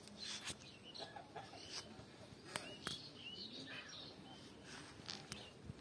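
Birds chirping outdoors: many short, rising calls scattered across a faint background, with a few sharp clicks.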